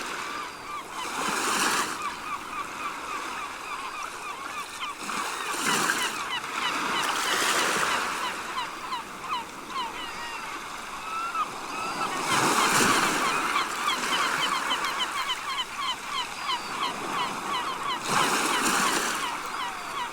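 A flock of seagulls calling over and over, many short cries overlapping, above sea waves washing ashore; the surf swells up about five times.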